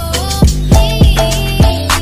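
Background music with a quick steady beat, about three to four beats a second, under a wavering lead melody.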